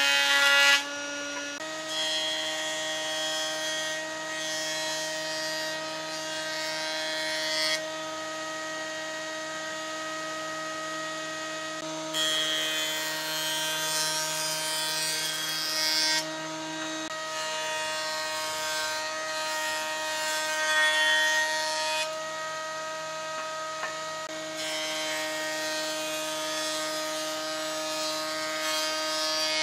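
Combination jointer-planer running with a steady hum while its cutterhead planes a long board; the cutting noise swells and eases several times as the board is fed over the knives.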